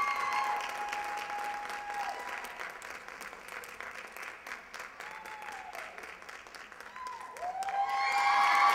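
Audience applauding and cheering, with long, high, drawn-out cheers held over the clapping. The clapping thins out through the middle, then swells loudly with fresh cheering near the end.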